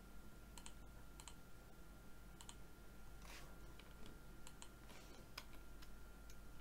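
Faint, irregular clicks of a computer mouse and keyboard, over a low steady hum.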